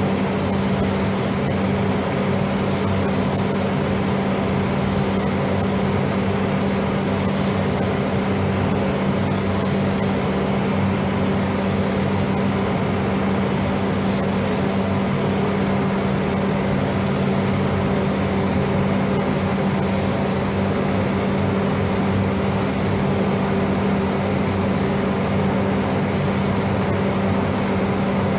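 Steady rush of air with a constant low hum inside an automotive paint spray booth: the booth's ventilation fans running.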